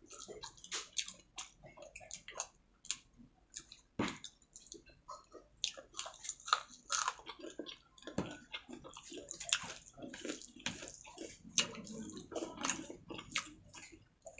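Close-up chewing and mouth sounds of a person eating chilli chicken gravy with rice: an irregular run of many short clicks.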